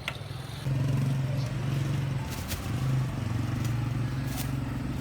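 A motor vehicle engine running steadily as a low hum that comes in under a second in, with street noise and a few light clicks.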